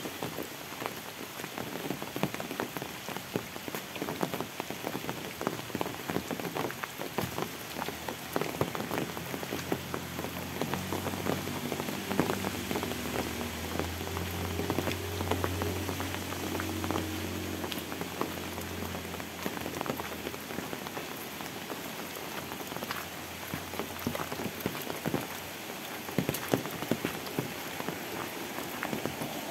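Steady rain falling on a wet road and vegetation, with close drops ticking all through. A low hum swells up in the middle and fades away again.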